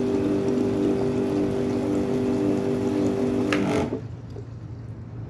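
Drain-jetting machine running steadily, an engine-driven pump with the hiss of water through the jetting hose. About four seconds in, the sound drops sharply after a click, leaving a low steady hum.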